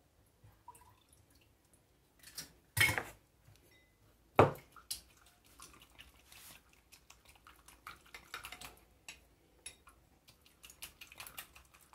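Egg yolk being beaten with a silicone pastry brush in a small glass for an egg wash: light, quick clicks and taps against the glass. Two sharper knocks come before it, about three and four and a half seconds in.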